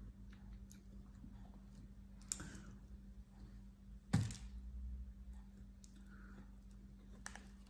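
Quiet eating sounds during a sushi meal: small clicks and taps of eating utensils, with a louder knock about four seconds in, and soft chewing.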